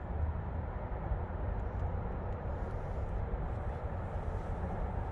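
Steady low rumble of a jet boat's outboard engine running at idle.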